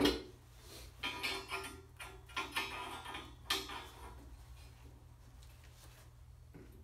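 Steel tubing being handled and test-fitted into a welded tube frame held in a bench vise: a sharp metal knock at the start, then a few shorter knocks and scrapes over the next three and a half seconds, quieter after that.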